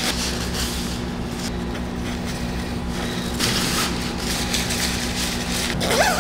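Synthetic fabric of a white protective coverall rustling in short bursts as it is pulled on, over a steady low mechanical hum.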